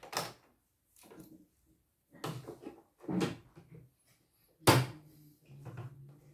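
Plastic knocks and clunks as an embroidery hoop is handled and fitted onto the carriage of an embroidery machine's embroidery unit, with a sharp loud click about three-quarters of the way through and a low steady hum after it.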